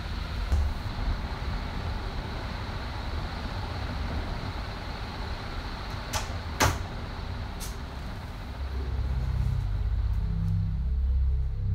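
Steady low room rumble, broken about halfway through by a few sharp clicks or knocks, the loudest a single sharp click like a door latch. Near the end a low, droning music tone swells in.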